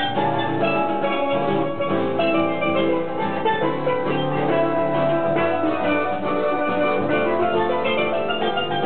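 Live acoustic instrumental music from a small ensemble with button accordion and acoustic guitar, played continuously at a steady level.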